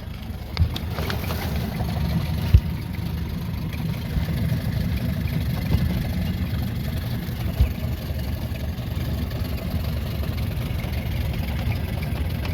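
Boat's motor idling steadily, with a sharp knock a couple of seconds in and another a little past the middle.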